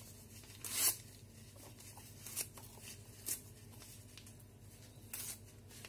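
Paper being torn by hand into small pieces: a handful of short rips, the loudest about a second in.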